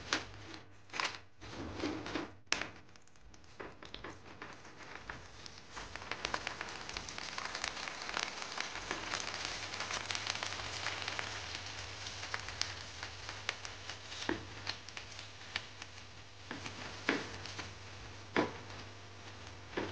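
Raw prawn crackers (kerupuk) frying in hot oil in a pan: a dense sizzling and crackling that builds up a few seconds in as they puff, then eases off. A few sharp knocks at the start and a few sharp clicks near the end from handling and turning them with a spatula.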